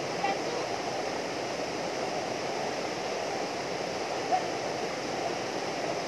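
Small waterfall pouring into a rock pool: a steady rush of falling water, with a short sharp sound about four seconds in.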